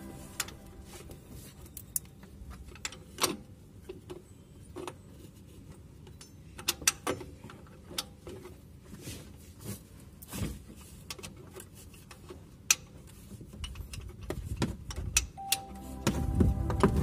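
Scattered metallic clicks and clinks of a ratchet socket wrench working the mounting bolt of an engine's fan-belt auto-tensioner to remove it. Background music comes back near the end.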